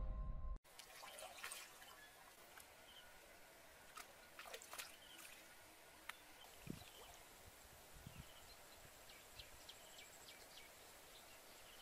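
Intro music cuts off about half a second in. Faint outdoor ambience follows, with scattered small clicks and short chirps over a low hiss.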